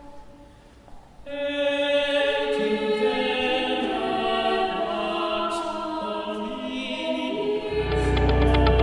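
Choral music: a choir singing long, held chords, coming in strongly about a second in, with a low pulsing beat joining near the end.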